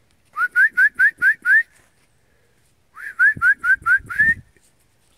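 A person whistling to call dogs: two runs of quick, rising whistle notes, about five a second, six in the first run and seven in the second, which ends on a slightly longer note.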